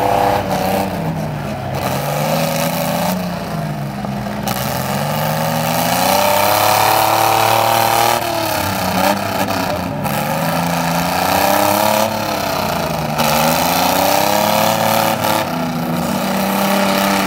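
Several compact demolition-derby cars' engines revving up and down at once, their pitches rising and falling over one another.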